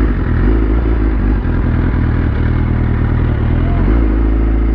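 Sport motorcycle engine running with a low, steady note at idle and low speed, the note growing fuller about four seconds in.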